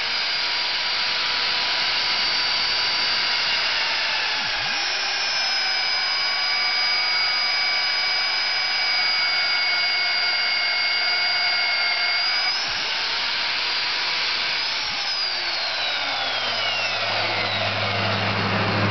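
Champion RB65 magnetic drill press driving a 7/8-inch annular cutter through 3/16-inch steel angle iron: the motor's steady high whine over the hiss of the cut. About three-quarters of the way through its tones slide down in pitch, and a low hum comes in near the end.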